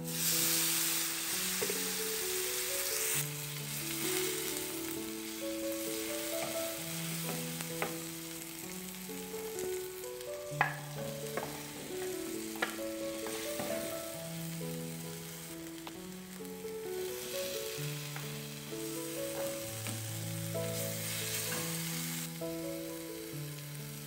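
Diced tomatoes and vegetables sizzling as they fry in oil in a frying pan. The sizzle is loudest in the first few seconds as the chopped tomatoes drop into the hot pan with the onions, and it swells again later as the pan is stirred. Two sharp knocks come in the middle.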